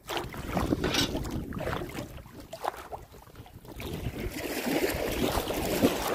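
Wire crab scoop net swishing and splashing through shallow water as it is jabbed after a crab, with wind rumbling on the microphone. The splashing grows louder over the last two seconds.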